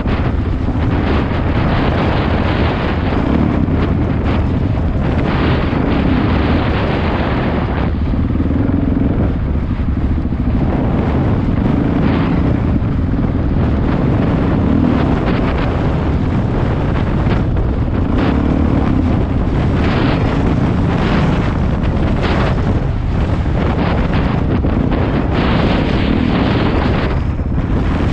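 Single-cylinder four-stroke dirt bike engine running under way on a dirt road, the engine note swelling and easing every few seconds with the throttle, with wind buffeting the microphone.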